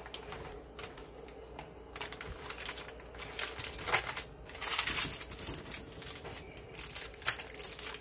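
Parchment paper crinkling and rustling in irregular crackles as a baked slab is lifted out of a ceramic baking dish by its paper lining and set on the counter.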